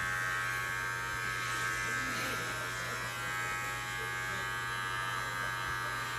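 Electric hair clippers running with a steady buzz as they trim short hair close around a man's ear.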